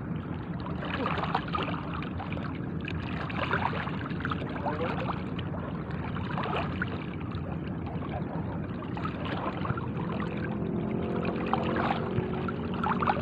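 Shallow seawater sloshing and splashing around legs wading through it and a hand-held fishing net being worked, with repeated small splashes.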